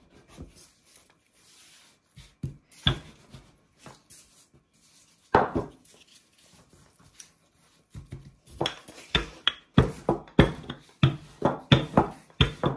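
Rolling pin working a ball of yeast dough on a floured work surface. It is mostly quiet with a few isolated soft knocks at first, then from about two-thirds of the way through a rapid run of short knocks, about three a second, as the pin is rolled back and forth.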